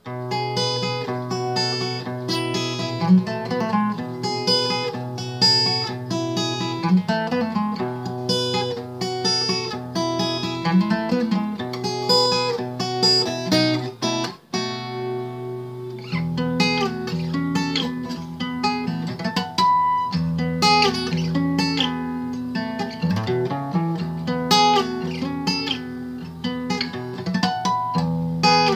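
Solo acoustic guitar playing an instrumental tune, a steady run of picked notes over held bass notes. It pauses briefly about halfway through, then carries on over a lower bass line.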